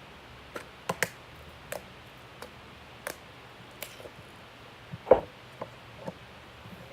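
Slime being worked by hand, giving irregular sharp clicks and small pops, the loudest a little after five seconds in.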